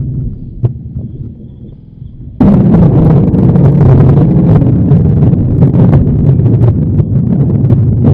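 Musique concrète soundscape: a low throbbing pulse, then about two and a half seconds in a loud, dense, crackling rumble cuts in suddenly and runs on.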